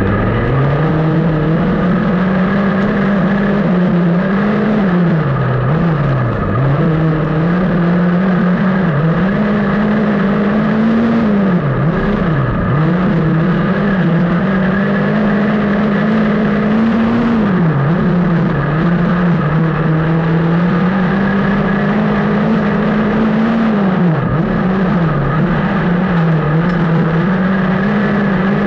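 Onboard sound of a Speedstr dirt-track race car's engine at racing speed. Its pitch climbs and holds along the straights and drops sharply each time the throttle is lifted for a corner, about every six seconds, lap after lap.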